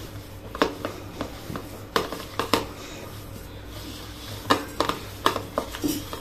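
Paneer and boiled-potato kofta mixture being mashed and mixed by hand in a bowl, with irregular clicks and knocks of fingers and bowl.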